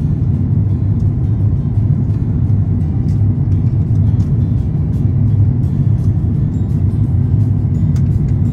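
Airliner cabin noise in flight: a steady low rumble of the jet engines and airflow that does not change.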